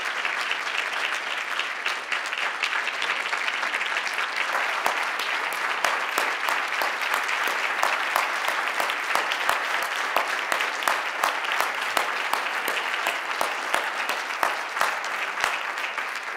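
An audience applauding in a hall, a dense steady clatter of many hands. From about five seconds in, a few louder, sharper claps stand out close by, and the applause thins out near the end.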